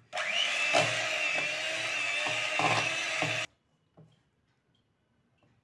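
Electric hand mixer whipping fresh cream in a steel bowl, its motor running at a steady pitch for about three and a half seconds, then switched off abruptly.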